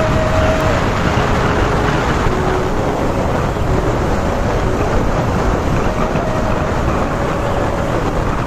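Steady wind and road noise from a vehicle riding along a paved road, with a faint engine hum that shifts slightly in pitch.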